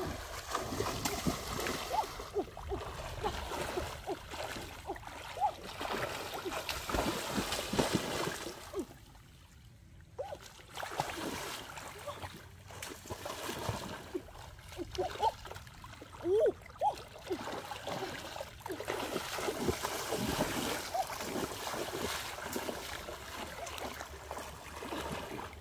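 Shallow river water splashing and sloshing as a person wades through it and lunges with both hands to grab fish. The splashing drops away briefly about nine seconds in.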